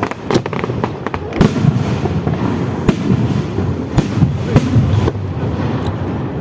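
Fireworks display: a quick run of sharp cracks in the first second, then heavy shell bursts about a second apart over a continuous low rumble.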